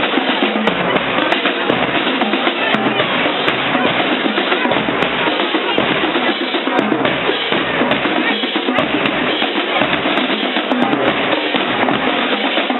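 Band drums playing live: snare and bass drum keep up a steady beat.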